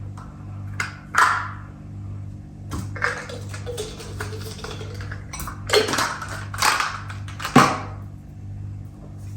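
A spoon scraping and tapping against a bowl of porridge, in a string of short clicks and scrapes, over a low pulsing hum.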